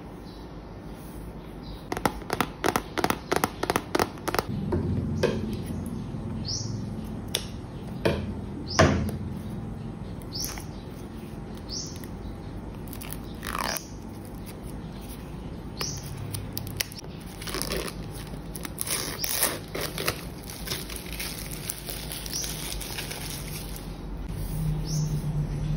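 Thin plastic wrap crackling and tearing as it is peeled off a cardboard Apple Pencil box, with a quick run of sharp clicks near the start and short falling squeaks. Later, cardboard rubbing as the box is handled and opened.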